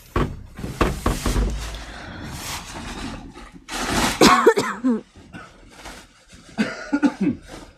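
Plastic feed sack rustling as chopped grass is shaken out of it, with a few cough-like bursts about four seconds in and again near the end.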